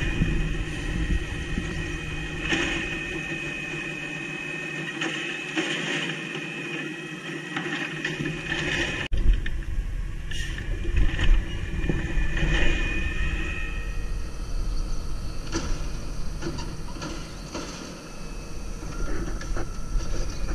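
Natural-gas automated side-loader garbage truck running, with a steady high whine from its hydraulics as the arm works the bins. Several sharp clunks and rattles come in the middle of the stretch.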